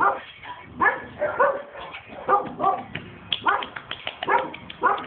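Several young puppies yipping and whimpering in short high calls as they play, a few calls a second with gaps between. A run of quick clicks comes about three and a half seconds in.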